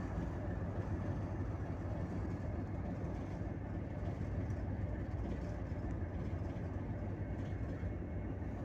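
A boat's diesel engine running with a steady low rumble.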